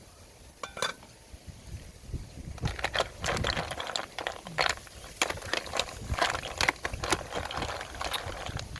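Food cooking in a pot and being stirred: a bubbling haze with irregular clicks and clinks, growing busy about two and a half seconds in.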